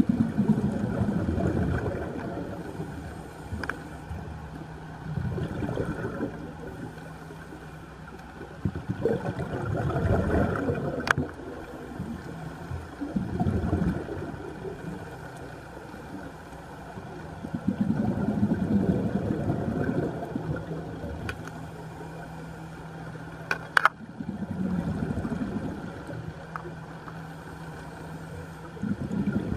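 Scuba diver breathing through a regulator underwater: bursts of exhaled bubbles rumbling and gurgling past the camera every four to five seconds, each lasting one to two seconds.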